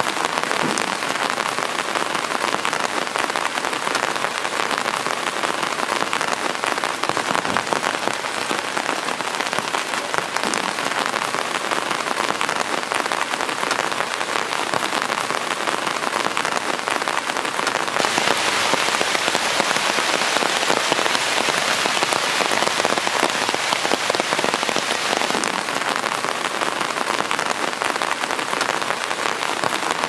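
Heavy rain falling steadily on leaves and grass, growing a little louder for several seconds after the halfway point.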